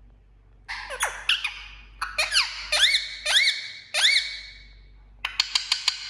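A pet parrot giving a run of shrill squawks, each sweeping sharply down and hooking back up in pitch. Near the end it breaks into a quick burst of short, clicking calls.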